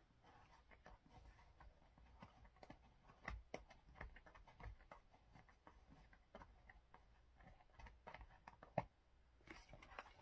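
Faint, scattered clicks, taps and rustles of hands handling a toy remote control car and its packaging, with a few slightly louder knocks.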